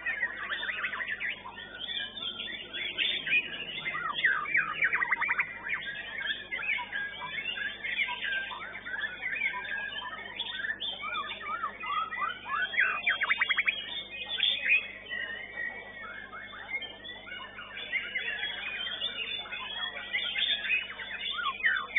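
White-rumped shama (murai batu) singing: a near-continuous, varied run of quick whistles, chirps and fast trills.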